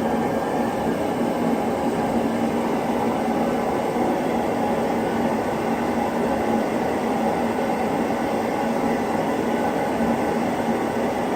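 DIY metal-melting foundry furnace running, a steady, unbroken rushing noise while it heats a charge of aluminum pop cans toward melting.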